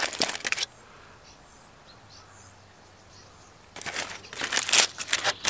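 Aluminium foil crinkling as a foil packet is pulled open by hand: a burst of crinkling at the start, a pause of about three seconds, then more crinkling from near the end.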